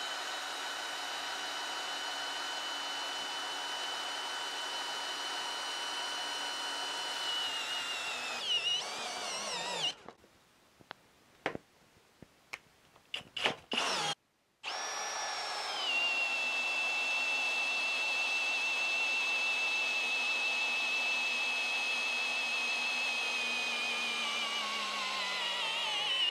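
Kobalt cordless hammer drill motor whining steadily as it bores a large wood auger bit into a log. Its pitch wavers and sags as it bogs down, and it stops about ten seconds in, short of finishing the hole. After a few clicks, a drill starts up again with a steady whine, then slows with a falling pitch near the end as it stalls under load before the bit is fully sunk.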